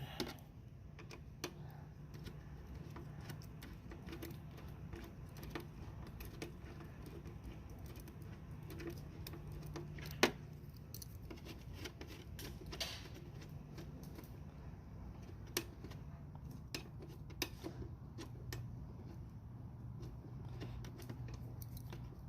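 Scattered small metallic clicks and ticks from an Allen wrench working the battery cover bolts of a Razor E275 electric scooter, with a couple of louder knocks about ten and thirteen seconds in, over a steady low hum.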